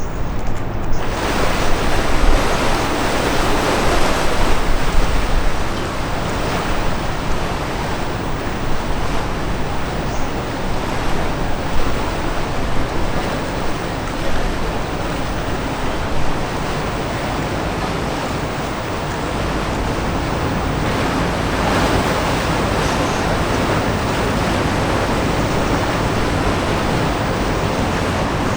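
Wind rushing over the microphone, gusting for the first few seconds and then steadier.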